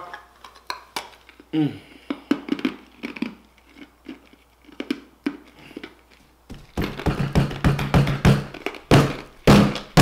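A man reacting to the burn of very spicy fried chicken. Faint taps and a short falling cry come first, then from about seven seconds in a quick run of loud, short voiced huffs and cries mixed with thumps.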